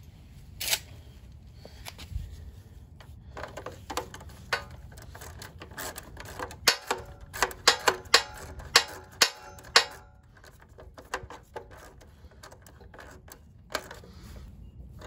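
Hand tools on metal: engine mounting bolts being threaded in and turned with a ratchet wrench, with scattered clicks and clinks and a quick run of sharp metallic clicks from about six to ten seconds in.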